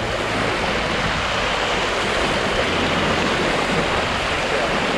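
Steady rushing of a small river's current.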